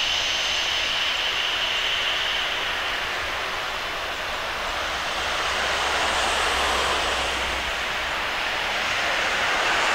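Jet aircraft engine noise: a broad rush with a thin steady high whine that fades after a few seconds. The rush swells twice.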